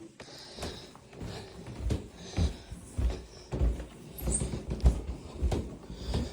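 A Chihuahua moving about close up: irregular soft thumps and scuffs, roughly two a second.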